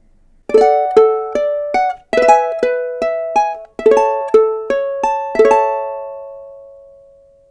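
TODA Guitars concert ukulele, German spruce top with curly maple back and sides, strung with fluorocarbon strings, strummed in short phrases of chords, about a dozen strokes, with the last chord left to ring out and fade. It has a full, deep ring.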